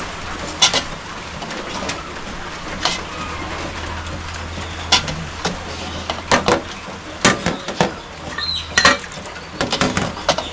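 Stainless steel pot, metal lids and utensils clinking and knocking against each other at a metal sink, in irregular sharp clinks that come more often in the second half. A low steady hum runs underneath.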